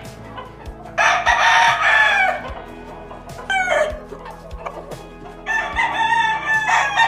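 Gamefowl roosters crowing. One long crow about a second in, a shorter call falling in pitch near the middle, and another long crow starting near the end.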